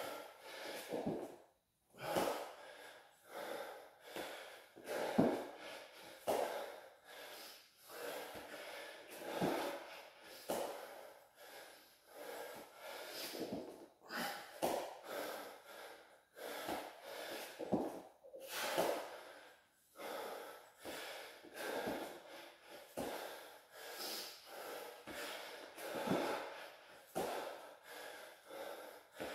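A man breathing hard through the nose and mouth from the exertion of burpees and squats, with sharp breaths about once a second.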